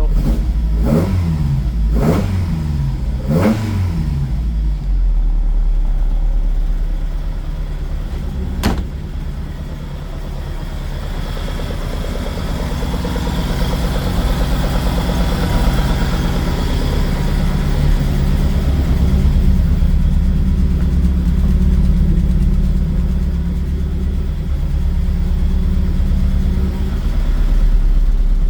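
Ford Cortina Mk2 engine running: three quick blips of the throttle, each rising and falling, in the first few seconds, then a steady run that grows slowly louder, with one sharp click about a third of the way in. It sounds crisp enough, even on fuel that has sat in the tank for over a year.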